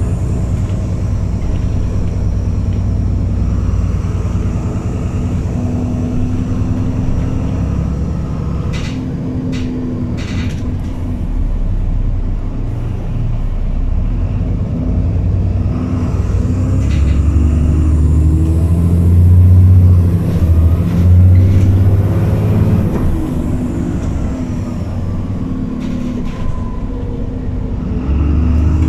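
Alexander Dennis Enviro400 double-decker bus on a Dennis Trident 2 chassis, heard from the upper deck: the diesel engine runs steadily, builds up under acceleration with a rising whine about two-thirds of the way through, then eases off. A few short rattles come from the body.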